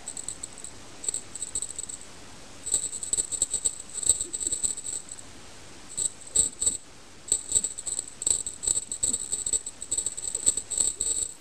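A cat's wand toy jingling as the cat bats and grabs at it, in quick, irregular runs with short pauses.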